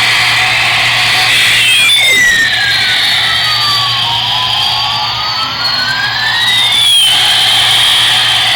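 Toy Airbus airplane's electronic jet engine sound effect playing from its small speaker: a steady high-pitched rushing noise, with a tone that slides down from about two seconds in and climbs back up by about seven seconds in.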